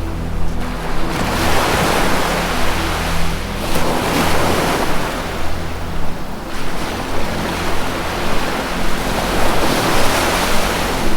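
Ocean waves washing ashore in slow swells, each surge of surf rising and falling over a few seconds, about three in all. Beneath them runs a soft, steady low drone of sustained music tones.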